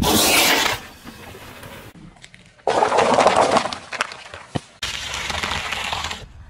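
A car tyre rolling over and crushing things on asphalt, in three short clips with abrupt cuts. A slime-filled piping bag squelches and bursts under the tyre at the start, paper cups crunch flat a little under halfway, and celery stalks crunch near the end.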